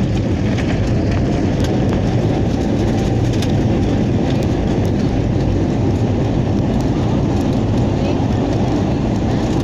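Loud, steady rumbling roar inside an airliner's cabin during the landing roll: engine noise and wheels running on the runway, even in level throughout.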